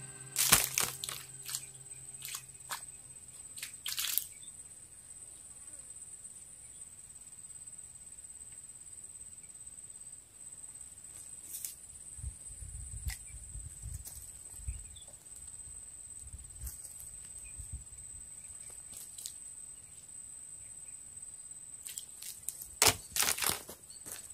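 Dry palm fronds and brush rustling and crunching in scattered short crackles, a cluster just after the start, a few in the middle and the loudest near the end, over a steady high-pitched hum.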